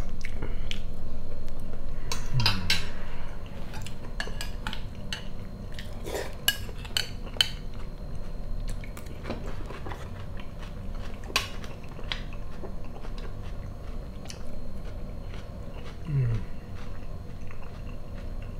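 Metal fork and spoon clinking and scraping against ceramic plates and a bowl while eating, with close-up chewing, densest in the first few seconds. Two short low hums, about two seconds in and near the end.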